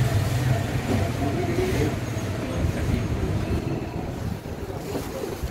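A low, steady rumble with faint voices behind it: the general background noise of a busy shop.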